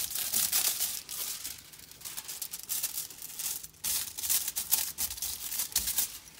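Foil leaf crinkling and rustling as it is pressed and rubbed by hand onto a glued surface, coming and going irregularly.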